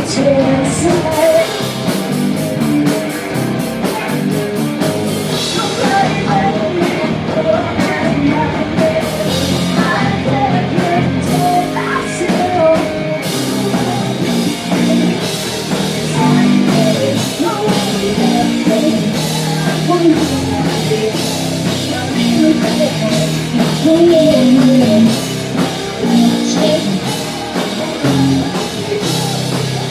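A live rock band playing: drum kit, guitars and a lead singer, loud and continuous.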